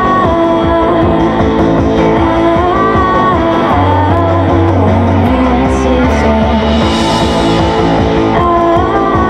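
A live rock band plays an instrumental passage: electric guitars over bass, with a few held low bass notes in the middle.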